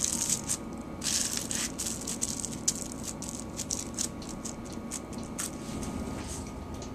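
Wax paper lining a baking pan crinkling and rustling under hands pressing a soft fudge mixture into the pan's corners and sides. A dense run of crackles in the first couple of seconds, then scattered crackles that thin out after about five seconds.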